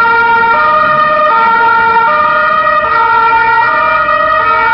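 Italian police car's two-tone siren sounding loud and close, switching back and forth between a lower and a higher note, each held a little under a second.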